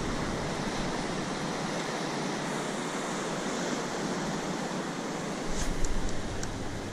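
Ocean surf breaking below a pier, a steady rushing wash of waves, swelling briefly about five and a half seconds in, with a few faint clicks near the end.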